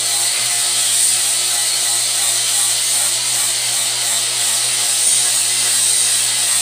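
Angle grinder grinding steel on a railroad-track anvil, cleaning up its surface: a steady, unbroken grinding hiss over the grinder motor's constant hum.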